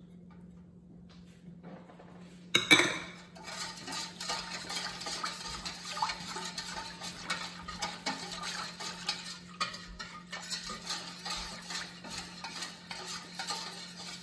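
Wire whisk beating thin batter in a stainless steel mixing bowl. A sharp clink comes about two and a half seconds in, then rapid, continuous tapping and scraping of the wires against the metal bowl.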